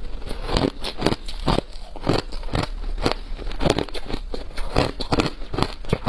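Ice being chewed and crunched between the teeth, close to the microphone: a steady run of sharp, crackly crunches, about two a second.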